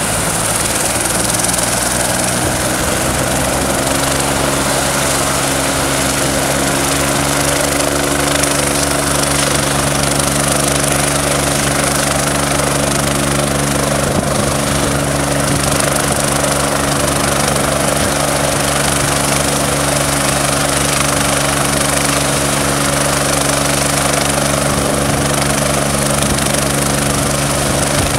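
Medical helicopter running on the ground with its main rotor turning slowly: a steady turbine whine over a low hum, its pitch rising a little in the first few seconds and then holding steady.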